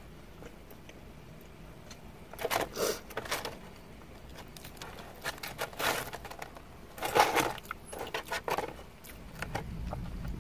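Rustling and crinkling of a food container as fried potato wedges are picked out of it, in several short irregular bursts.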